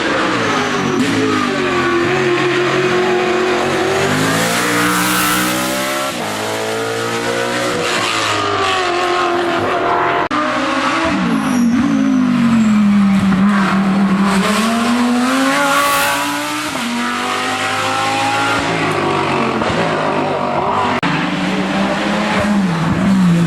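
Racing car engine at full effort on a hillclimb run, its pitch climbing under acceleration and falling back several times as the driver lifts and shifts for the bends.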